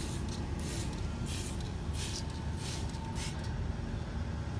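A hand-held trigger spray bottle of water squirting five times in quick succession, about one short hiss every two-thirds of a second, stopping a little after three seconds in, over a steady low background rumble.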